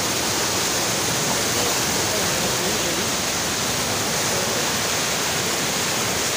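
The Neelum River in flood, a fast muddy torrent rushing past the bank: a steady, loud rush of water with no let-up.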